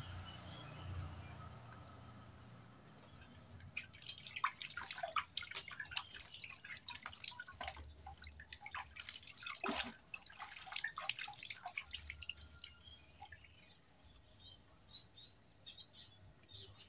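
Water splashing and dripping as a red plastic motorcycle lamp lens is scrubbed by hand in a pot of soapy water. The splashing is busiest from a few seconds in to about eleven seconds, then thins out.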